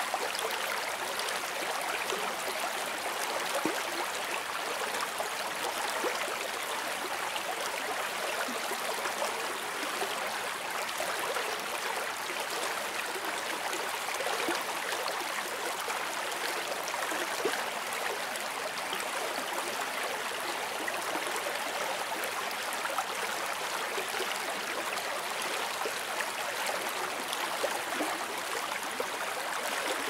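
Small river rushing and splashing over rocks through shallow riffles: a steady, even hiss of white water.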